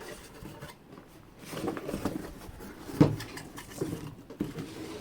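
A box being opened by hand: scraping and rustling of the packaging, with a sharp knock about three seconds in and a few lighter knocks after it.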